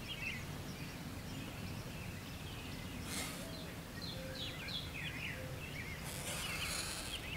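Small birds giving short chirping calls now and then over a low, steady outdoor background noise, with faint rustles about three seconds in and again near six seconds.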